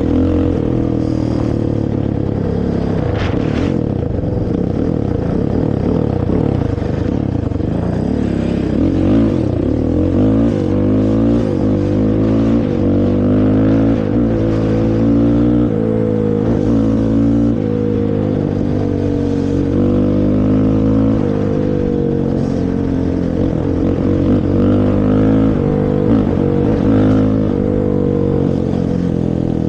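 Honda TRX450 quad's single-cylinder four-stroke engine through its stock exhaust, under way with the throttle repeatedly opened and closed, so the revs climb and drop again every second or two.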